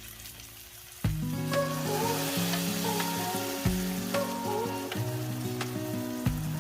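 Food sizzling as it fries in a pan, under background music; a new song with a steady bass line starts about a second in and is the louder sound.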